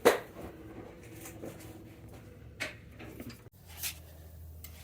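Knocks and clunks of parts being handled while swapping the Jeep's track bar: one sharp knock at the start, then two softer ones about two and a half and four seconds in.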